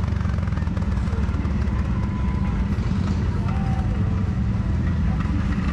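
Kawasaki Brute Force 750's V-twin engine running steadily as the ATV rides along a dirt trail.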